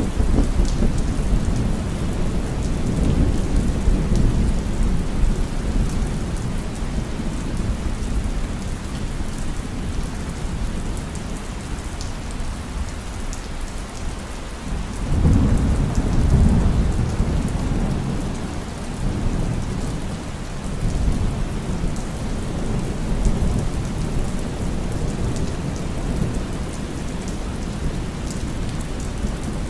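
Thunderstorm ambience: steady rain with thunder. The tail of one rumble fades at the start, and a second long, rolling rumble swells about halfway through and dies away over several seconds.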